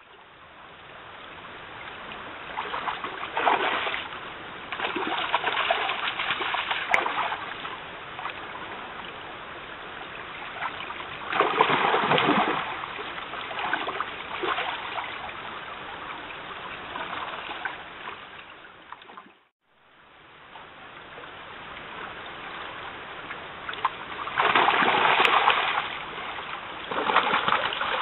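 Shallow stream running, with several bursts of splashing as a bear wades and lunges at salmon in the water. The sound fades out to nothing for a moment about two-thirds of the way through, then fades back in.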